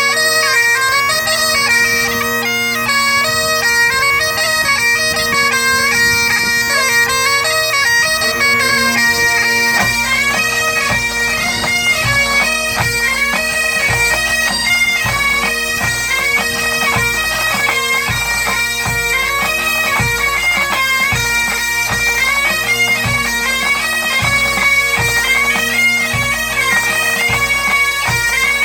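Breton bagad playing: bagpipes carry a lively melody over steady drones. About ten seconds in, a regular low drum beat joins.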